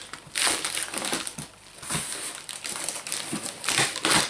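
Plastic wrapping crinkling and cardboard rustling as a heavily taped shipping box is pulled open: a run of uneven rustles and rips, the sharpest about half a second in and just before the end.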